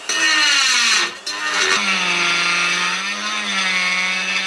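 Die grinder spinning a rotary burr as it cuts out a crack in a cast aluminium oil sump. The motor whine sags in pitch as the cutter bites and recovers, breaks off briefly about a second in, then runs on more steadily.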